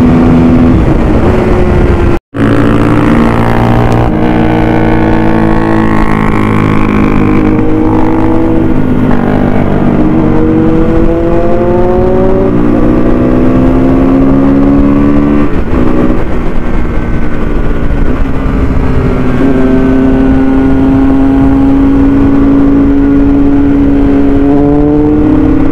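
Motorcycle engine under way, pulling through the gears: its pitch climbs with each gear and drops back at each shift, several times over. The sound cuts out for a split second about two seconds in.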